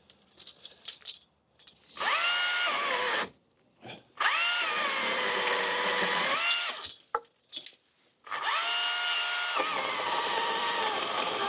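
Battery-powered electric pole saw run in three bursts of a few seconds each, cutting holly branches: each burst spins up to a high whine and winds down, and the pitch sags in the middle burst as the chain bites into wood. Short clicks and snaps come between the bursts.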